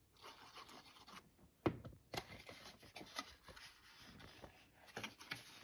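Cardstock being handled and pressed together by hand, the paper rubbing and rustling, with a sharp tap about a second and a half in and a few lighter ones later.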